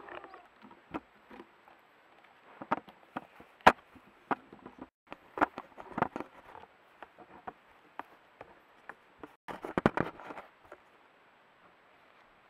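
A wolf nosing and brushing against a trail camera: irregular sharp taps, knocks and scrapes on the camera housing, with a quick flurry of them about ten seconds in.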